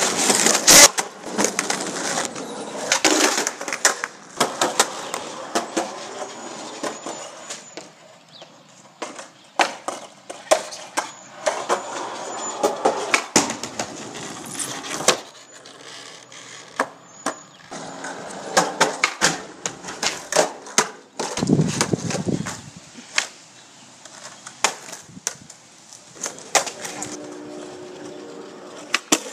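Skateboard wheels rolling on concrete, broken by many sharp pops, clacks and landing slaps of the board as tricks are tried on ledges and curbs.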